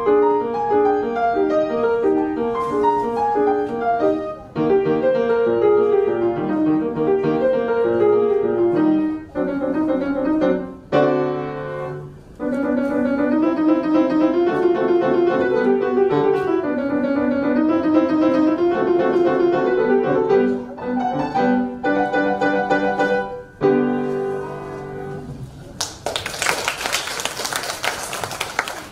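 Grand piano played solo, a quick classical piece in busy, repeated runs of notes, closing on its final chords about 25 seconds in. Audience applause then starts and fills the last few seconds.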